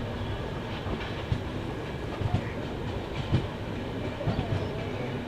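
Passenger train running along the track, heard from aboard: a steady rumble with irregular knocks of the wheels over rail joints.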